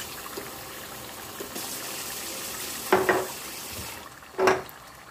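Water running from a tap into an emptied tomato passata bottle to rinse out the leftover passata, for a couple of seconds from about one and a half seconds in. Two sharp knocks, one about three seconds in and a louder one near four and a half seconds, come from the bottle being handled.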